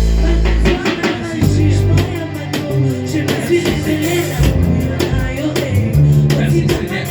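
Church praise band music: a drum kit keeping a steady beat under a strong electric bass line, with singing over it.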